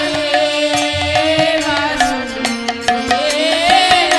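Bengali kirtan music: khol drum strokes and small hand cymbals keep the beat under a held keyboard melody, with a pitched line gliding up near the end.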